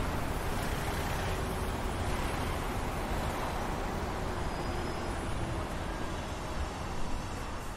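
Steady rushing noise with a low rumble, like vehicle or traffic noise.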